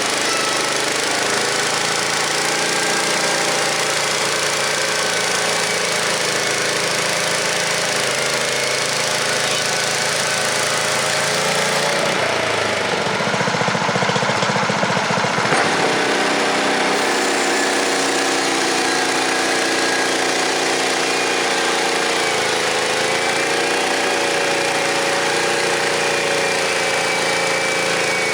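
The 7 hp 250cc Briggs & Stratton engine of a Frontier OS23 portable bandsaw mill, running steadily. About twelve seconds in, the sound changes for about four seconds, then settles back.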